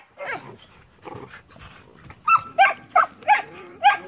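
Puppies yapping: a couple of short, high-pitched barks near the start, then a quick run of about five yaps from a little past halfway on.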